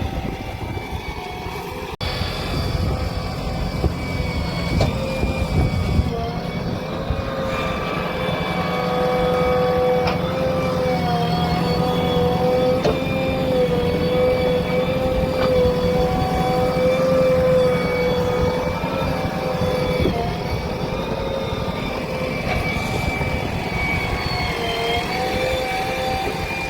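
Diesel engines of earth-moving machinery running steadily under load, a low rumble with a high whine that wavers slightly in pitch.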